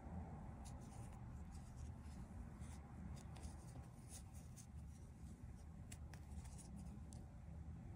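Faint, irregular scratching and rustling of a metal crochet hook working yarn through stitches, in many short strokes over a low steady room hum.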